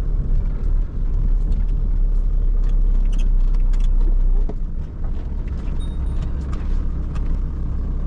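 Camper van engine running, heard from inside the cab while driving slowly over sandy ground, with light clicks and rattles from the cabin. The deep rumble eases off about halfway through.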